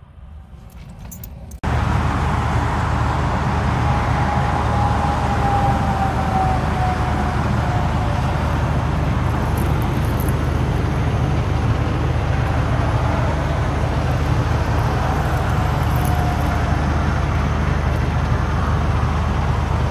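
Steady, loud road traffic noise with a low steady hum, starting abruptly about two seconds in; twice a passing vehicle's whine drops slowly in pitch as it goes by.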